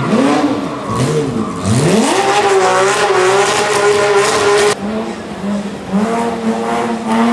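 Rally car engine accelerating hard, its pitch climbing steeply through quick upshifts and then held at high revs. It cuts off suddenly near the middle, and a lower engine note rises slowly after it.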